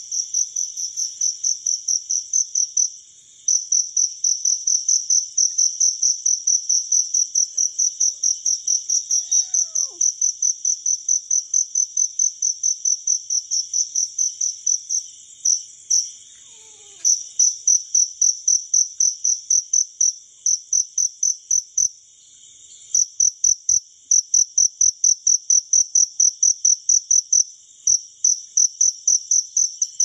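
Cricket chirping in a fast, even rhythm of about three chirps a second, with a few short pauses. A fainter, steady insect trill runs underneath.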